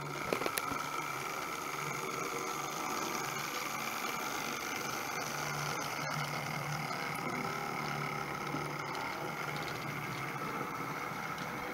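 OO gauge model Class 08 shunter running along the track hauling a short train of wagons: a steady electric-motor whine and wheel rumble, with a couple of sharp clicks about half a second in.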